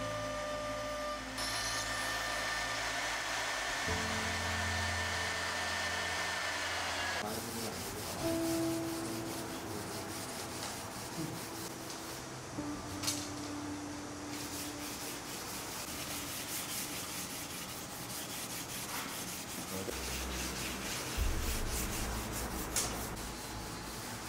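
Hands sanding and rubbing across a bed of thin wooden tambour-door slats: a continuous scratchy rubbing with a few short knocks. It follows a steady whine that stops about seven seconds in.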